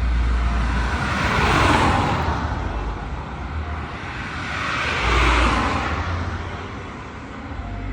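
Highway traffic: a steady tyre and engine rush with a deep rumble, and two vehicles passing close by, swelling loudest about a second and a half in and again about five seconds in, then fading.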